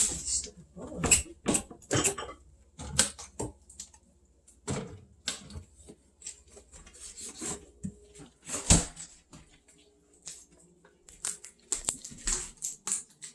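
Knife cutting raw chicken on a cutting board: irregular knocks and clicks of the blade against the board, one louder knock a little past the middle.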